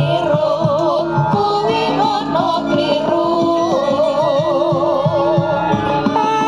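Javanese gamelan accompanying a wayang kulit shadow-puppet show, with a sindhen singing a long, wavering melody over held metallophone notes and short drum strokes. The voice slides upward near the end.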